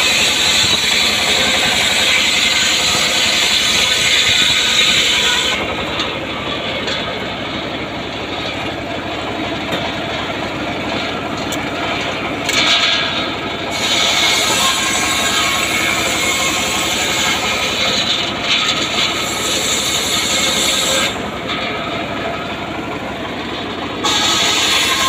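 Homemade log sawmill running with its engine pulsing steadily under the hissing whine of the saw blade cutting through a log. The high cutting noise drops away twice for a few seconds at a time, then returns.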